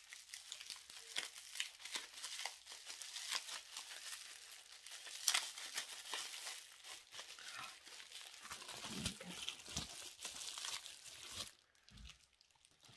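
Plastic bubble wrap being crumpled and pulled open by hand: a dense crackling and rustling full of sharp little clicks, which stops abruptly near the end.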